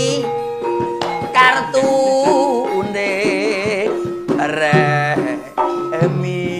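A man singing a Javanese song, his held notes wavering in vibrato, over gamelan accompaniment with steady tones and occasional drum strikes.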